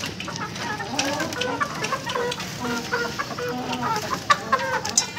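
Aseel chickens clucking, with many short calls from several birds.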